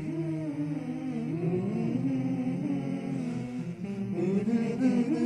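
Background music with a slow melody that glides up and down in pitch.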